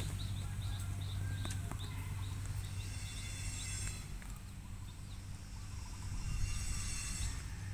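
Outdoor field ambience: a steady low rumble with a run of short, high, rising chirps, about three a second, that stops a few seconds in. A faint high hiss swells twice.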